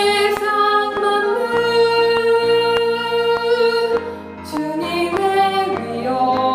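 Soprano line of a choral hymn sung in held, steady notes over piano accompaniment playing repeated chords. The voice drops out briefly a little after the middle, then comes back in.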